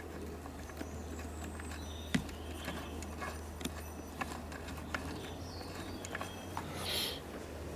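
Light clicks and taps of small plastic and metal chainsaw parts being handled and pressed into place as the bar-oil pump's drive cog is fitted on the crankcase. A brief rustle comes near the end, over a steady low hum.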